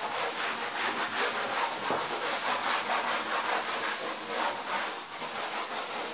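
A board duster being rubbed back and forth across a chalkboard, wiping off chalk writing in quick, repeated scrubbing strokes.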